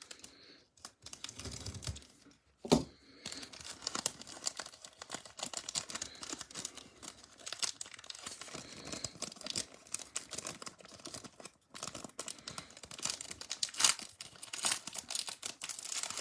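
Plastic wrapper of a Bowman Platinum baseball card pack being torn open and crinkled by hand, a dense run of crackling, with a sharp snap about three seconds in and another near the end.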